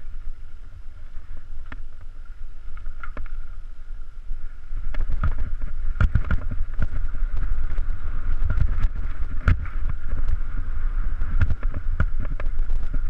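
Mountain bike descending a rough dirt trail: wind rumbling on the helmet-mounted action camera, with frequent knocks and rattles as the bike goes over bumps. It gets louder about five seconds in as the ride speeds up.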